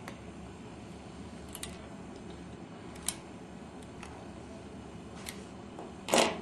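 Small sharp clicks of a plastic cable connector being squeezed together with wire strippers, a few scattered ones and then a louder, longer click-and-knock near the end, over a steady low background hum.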